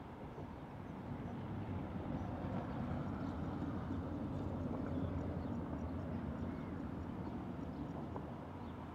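Low rumble of a passing road vehicle, swelling over a few seconds and fading again, with faint bird chirps above it.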